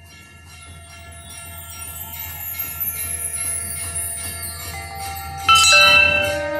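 Rhythmic jingling with bell-like tones that slowly grows louder. Then a hanging temple bell is struck by hand about five and a half seconds in: a sudden loud ring that keeps sounding, the loudest sound here.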